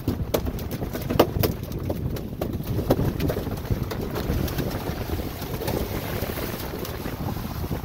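Irregular sharp knocks on a fibreglass boat deck over a low rumble of wind and boat noise; the knocks stop about three seconds in and the rumble continues alone.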